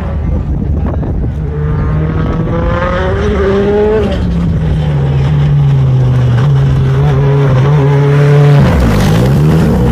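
2017 Ford Fiesta WRC rally car's turbocharged four-cylinder engine at full throttle on gravel. The engine note climbs through the gears as the car approaches, holds steady at high revs, and then the car passes close about nine seconds in with a sharp drop in pitch.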